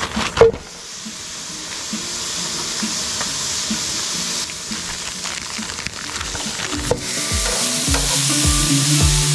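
Raw steaks sizzling in a hot nonstick frying pan, a steady hiss that grows louder as the meat goes in, after a sharp knock about half a second in. Background music with a steady beat comes in near the end.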